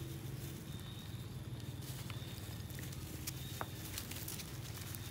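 Long-tailed macaques moving about on loose gravel: scattered light clicks and rustles at irregular moments over a steady low hum.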